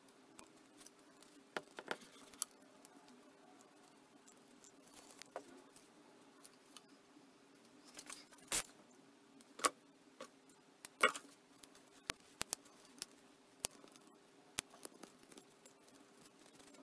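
Scattered light clicks, taps and short rubbing sounds of hands handling a vinyl-wrapped tennis racket frame, the sharpest clicks a little past the middle, over a faint steady hum.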